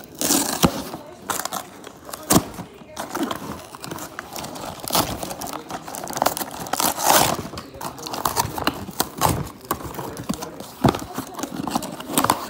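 Toy packaging being opened: plastic and cardboard crinkling and tearing, with scattered sharp clicks and knocks.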